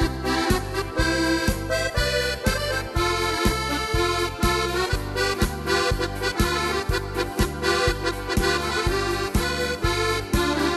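Yamaha PSR-SX700 arranger keyboard playing a Bavarian song on its accordion voice over its own accompaniment: a steady beat with about two bass notes a second.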